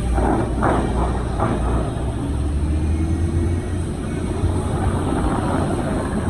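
City bus engine and road noise heard from inside the cabin: a steady low rumble that grows stronger about two seconds in.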